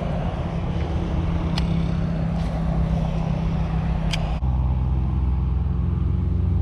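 A steady low engine hum, a motor running close by, drops to a deeper, louder tone about four and a half seconds in. Two sharp ticks come through it, one near the middle and one just before the change.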